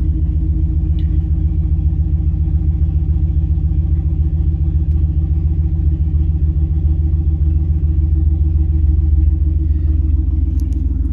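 Turbocharged Cadillac Escalade V8 idling steadily after a cold start, heard from inside the cab. It is still on startup enrichment and running rich.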